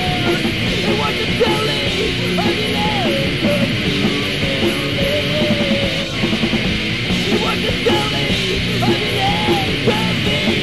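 Punk rock band music playing loud and dense, with a wavering high melody line weaving over it.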